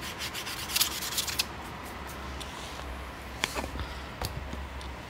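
Aluminum cylinder head rubbed back and forth on 80-grit sandpaper laid flat on a table-saw top, flattening its slightly warped gasket face: a quick run of gritty rasping strokes in the first second and a half, then two sharp knocks later on.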